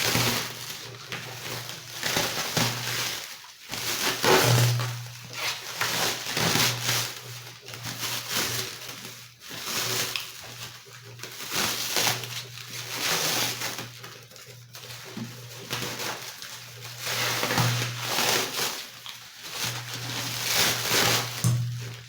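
Background music with a steady low bass note and swelling, rhythmic rises and falls.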